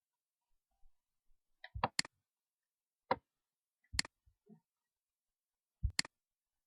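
Four sharp clicks from a computer's keys or buttons, a second or two apart, some of them doubled press-and-release pairs.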